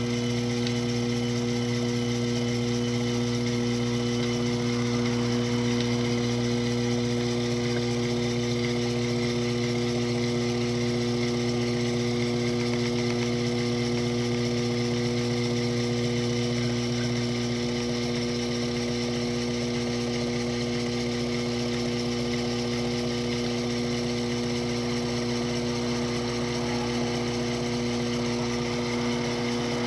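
Sherline mini mill's spindle motor running steadily at constant speed, a hum with several steady tones over a light whir, while an edge finder in the spindle locates the edges of the work.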